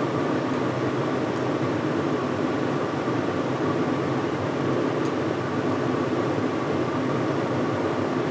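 Kitchen range hood exhaust fan running steadily, an even rushing noise with a low hum under it.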